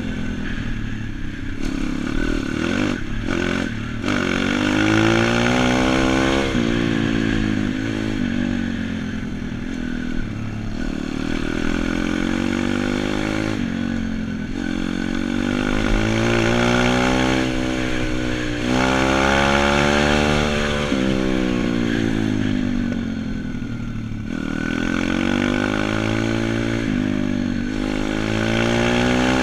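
YX single-cylinder four-stroke pit bike engine under way, revving up and easing off again and again, its pitch rising with each pull of the throttle and falling as it backs off.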